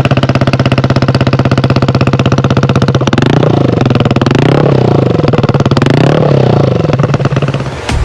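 Aprilia SR GT 125 scooter's single-cylinder four-stroke engine heard through its exhaust, running at steady revs, then revved up and down several times from about three seconds in.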